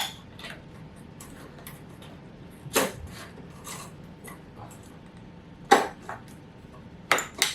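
Handling noise from an electric bug zapper's plastic housing and its new lamp tube as they are fitted together. A few sharp clicks and knocks come a couple of seconds apart, with fainter ticks between them.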